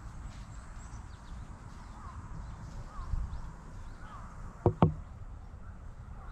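Two sharp clicks in quick succession about two-thirds of the way through, as the cat's mouth knocks against the plastic cat grooming file it is rubbing its face on. Under them is a steady low rumble of handling noise, with faint short bird chirps about once a second.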